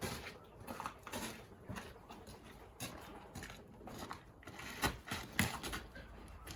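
Footsteps crunching irregularly on icy ground, with two louder thumps about five seconds in.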